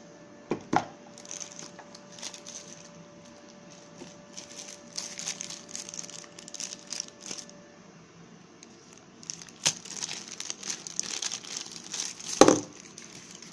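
Plastic packaging crinkling and rustling in the hands, on and off, with a few sharp knocks and taps; the loudest knock comes about twelve seconds in.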